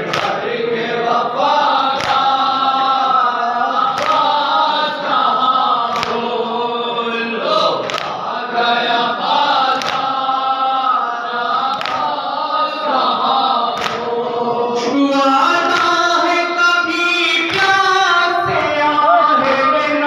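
A crowd of men chanting a noha, a Shia lament, in unison. Sharp strikes of chest-beating matam land together about every two seconds.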